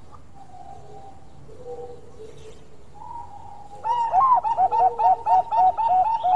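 Bangkok-line zebra dove (perkutut) cooing. A few soft coos come first, then about four seconds in a loud, fast run of evenly spaced notes, about four a second.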